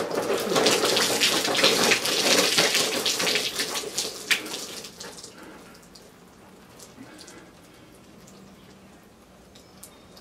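About two pints (a litre) of milk poured over a person's head, splashing and pattering loudly onto them and onto towels on the floor. The splashing tails off after about five seconds.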